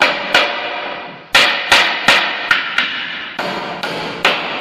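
Claw hammer driving nails into a wooden stair tread: about ten sharp blows, unevenly spaced, each ringing briefly.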